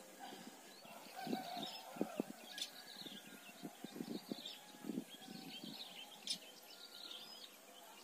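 Faint small birds chirping in the background, with scattered soft close taps and rustles.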